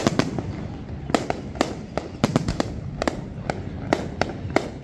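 Aerial fireworks going off in a rapid, irregular string of sharp cracks and pops, about three a second.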